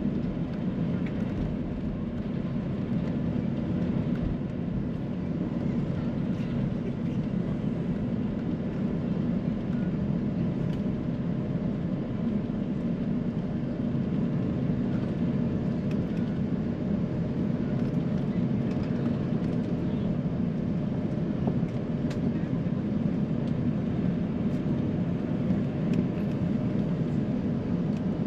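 Steady cabin noise inside an Airbus A350-900 on the ground before takeoff: a low, even rumble of the Rolls-Royce Trent XWB engines at idle, mixed with air-conditioning hiss, with a few faint cabin clicks.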